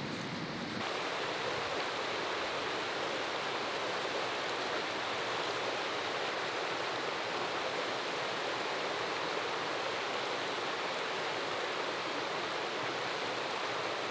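Shallow mountain stream rushing steadily over rocks, starting about a second in.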